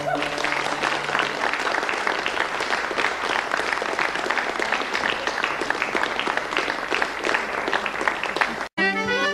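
Audience applauding after a live folk tune as the tune's last held note dies away in the first second or so. The applause cuts off abruptly near the end, and a fiddle tune starts.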